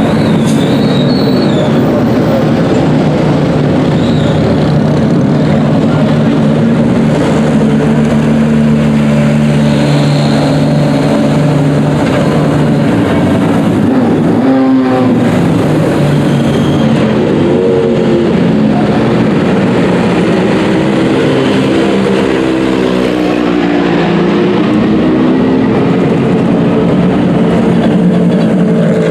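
Race car engine running at a steady idle, with short rises and falls in engine speed about halfway through and again in the later part.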